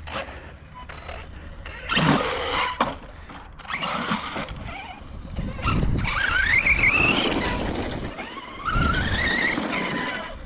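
Brushless electric motor of a radio-controlled truck whining as it is driven hard, rising steeply in pitch twice as it accelerates, with bursts of noise from the running gear and tyres.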